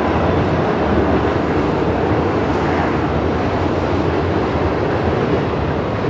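Double-stack intermodal container train's well cars rolling past, a steady rumble of steel wheels on rail.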